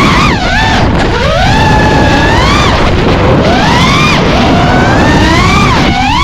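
FPV racing quadcopter's four brushless motors (Xing-E Pro 2207 2450kv) whining over propeller and wind rush. The pitch sweeps up and down several times as the throttle is punched and eased.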